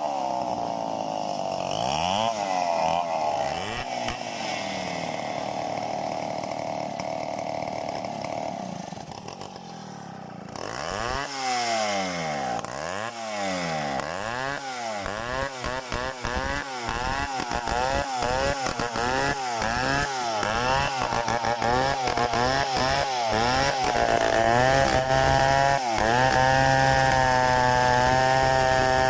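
Two-stroke Stihl chainsaw working through mahogany, its engine speed rising and falling over and over as it loads and unloads in the cut. It drops back briefly about a third of the way in, then holds steady at high speed near the end.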